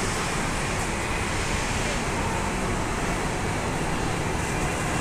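An Alexander Dennis Enviro500 double-decker bus driving past at close range, mixed into steady street traffic noise.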